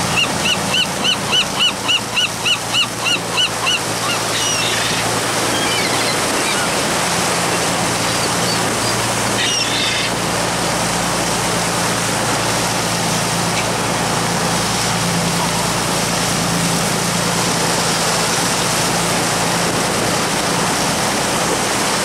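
Gull giving a rapid series of about a dozen loud calls, about four a second, then a few scattered calls around four and ten seconds in. Underneath runs the steady rush of the boat's wake and wind and the low drone of the boat's engine.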